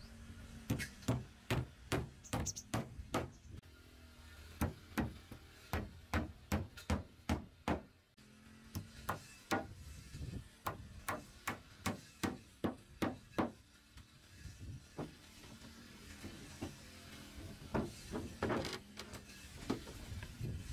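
Repeated hammer blows on wood, in runs of about two to three strikes a second with short pauses between runs.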